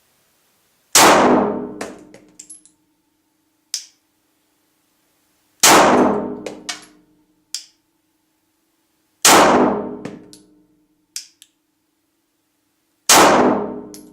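Four single shots from a Glock 17 9mm pistol, fired slowly about four seconds apart, each ringing out in a small room, with a few lighter clicks and tinks after each shot.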